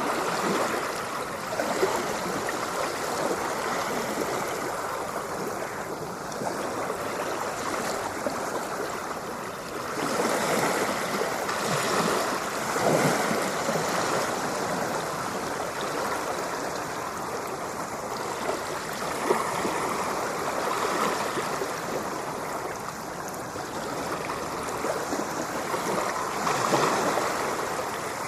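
Ocean surf: a continuous rush of waves washing in, swelling and easing every several seconds.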